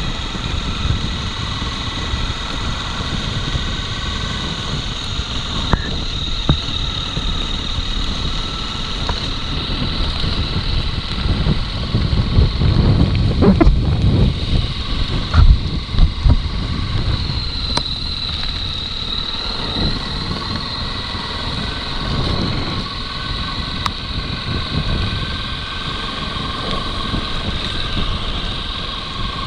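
Motorcycle running steadily on a dirt road, with wind noise on the microphone. About halfway through, the low rumble gets louder for several seconds and a few sharp knocks come through.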